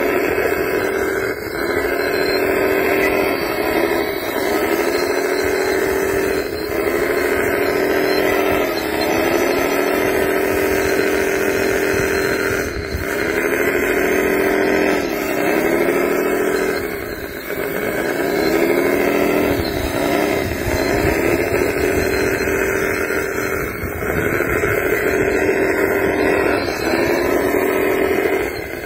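Radio-controlled wheel loader's motor whining steadily, its pitch sagging briefly and recovering every few seconds as the machine works.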